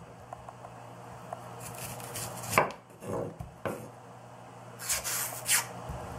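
Chef's knife slicing through a peeled white onion and knocking on a wooden cutting board: a handful of separate cuts, irregularly spaced, starting about two seconds in.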